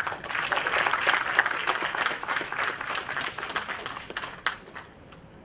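Audience applauding, a dense patter of many hands clapping that starts suddenly and dies away to a few last claps about five seconds in.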